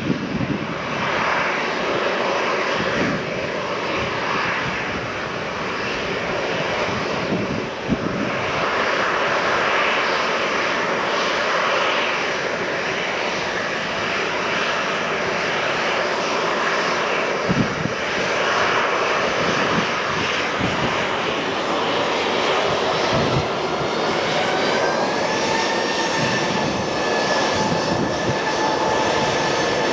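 Ryanair Boeing 737's twin turbofan jet engines running at taxi power as the airliner taxis and turns onto the runway. About two-thirds of the way through, a whine rises in pitch and then holds steady as the engines spool up a little.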